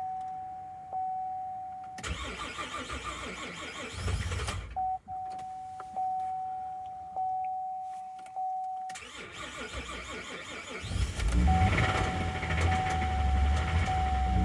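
The 3.6L V6 of a 2011 Chevy Traverse is cranked by its starter in two attempts, then catches about eleven seconds in and keeps running loudly: a hard start on an engine with failed timing chains and cam-position faults. A steady high electronic tone sounds between the cranking attempts and again once the engine runs.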